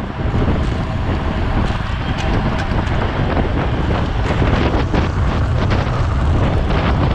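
Strong wind buffeting the microphone of a camera riding on a racing bicycle at speed, with scattered sharp clicks and ticks from the bike throughout, more frequent in the second half.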